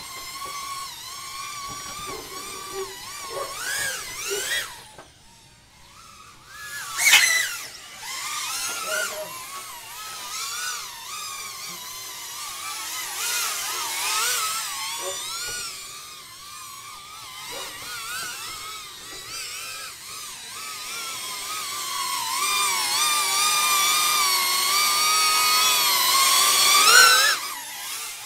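Shendrones Squirt cinewhoop's four 3600kv brushless motors whining in flight, the pitch rising and falling with throttle. The whine drops away briefly about five seconds in, then comes back in a sharp loud burst. It swells louder toward the end before cutting off suddenly.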